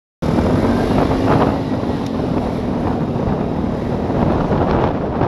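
Wind buffeting the action camera's microphone on a moving Vespa GTS 250 scooter, over the low hum of its single-cylinder engine, which sags slightly in pitch. The sound cuts in suddenly just after the start.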